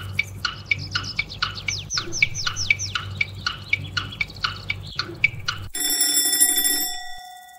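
Quiz countdown-timer sound effect: quick, evenly spaced falling chirps about four a second over a low hum, stopping a little before six seconds in when an alarm-clock bell rings once and fades away, marking the end of the answer time.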